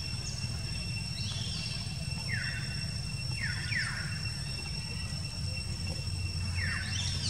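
Outdoor ambience with a steady low rumble and a steady high whine, broken by a few short high-pitched calls that fall in pitch, each lasting well under a second.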